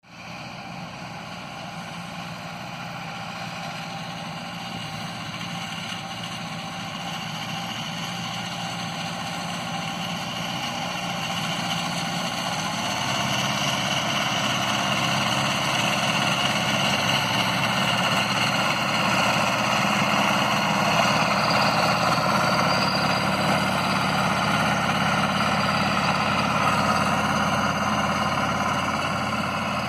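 Reform Metrac 2002 tractor's engine running steadily as it mows hay with its front-mounted mower. It grows gradually louder over the first half as the machine comes closer, then holds level.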